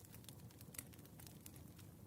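Firewood burning with faint, irregular crackles and pops over a soft low hum; the two loudest pops come just before the start and a little less than a second in.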